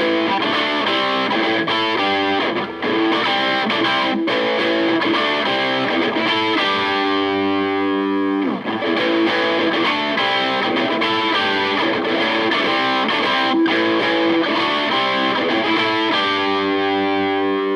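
Electric guitar played through a Meteoro Vulcano 200 amplifier's clean channel, with the crunch switch on, the preamp gain turned fully up and the master at minimum, giving a heavily overdriven tone. It plays sustained distorted notes and chords, with a pitch slide about eight seconds in.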